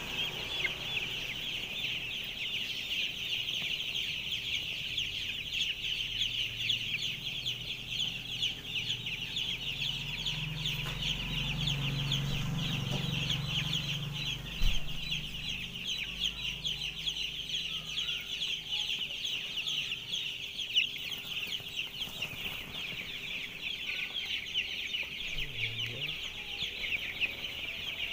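A large flock of five-day-old broiler chicks peeping non-stop, a dense chorus of overlapping high peeps over a faint low steady hum.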